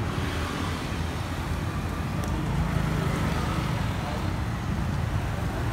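Street ambience dominated by steady road traffic noise, a low rumble of passing cars and motorbikes, with indistinct voices in the background.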